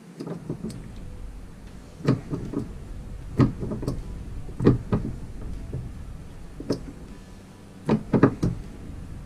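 Irregular sharp metal knocks and taps as a coin ring is worked down a tapered steel ring mandrel with a steel rod, stretching it slightly larger. The knocks come singly and in pairs, with a quick cluster of three near the end, the loudest.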